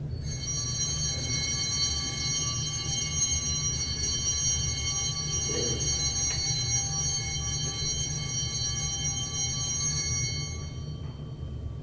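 Altar bells ringing steadily for about ten seconds, then stopping: the bells rung at the elevation of the consecrated host. A low steady hum runs underneath.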